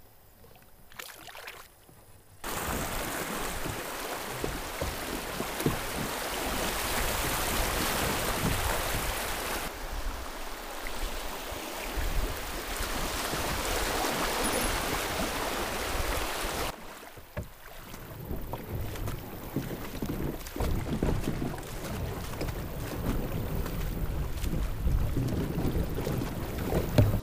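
Water rushing and splashing around a kayak moving down a river. A loud steady rush starts abruptly a couple of seconds in and drops away sharply past the middle, leaving quieter water sounds with scattered low knocks.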